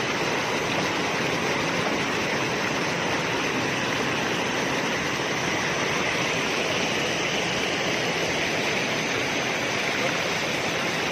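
Rushing water of a rocky mountain stream and a small waterfall, a steady unbroken rush.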